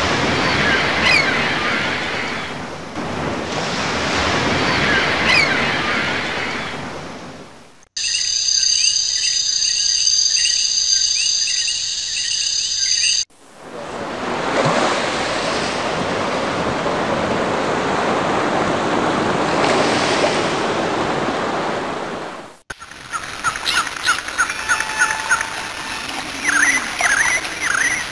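A run of nature sound effects joined by abrupt cuts. Surf washes in swells with bird chirps over it, then come a few seconds of high whistling tones, then another long wash of surf, and finally birds chirping quickly.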